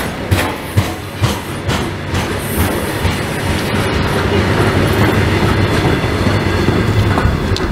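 Goods wagons of a short freight train rolling past close by: wheels clicking over rail joints about twice a second, then a steadier rumble and rattle as the last wagons and the brake van go by.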